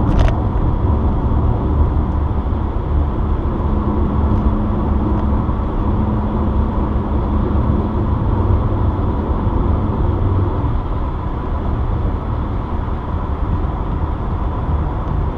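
Steady road and engine noise inside a car's cabin while driving on a highway, with a faint hum that comes in for a few seconds in the middle.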